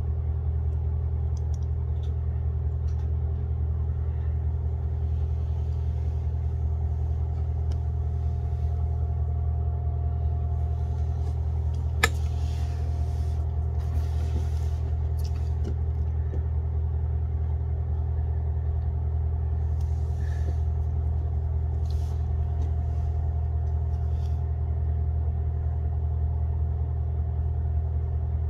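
Steady low machine hum with a faint steady tone above it, unchanging throughout; a single sharp click about twelve seconds in.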